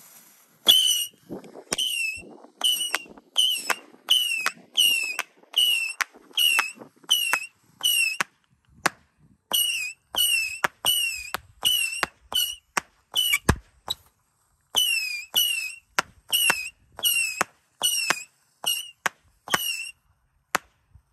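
Saturn missile battery firing: a rapid string of small whistling rockets, about two a second, each a sharp pop followed by a short whistle that dips and rises in pitch. There is a brief gap about two-thirds through, then the shots carry on until they stop near the end.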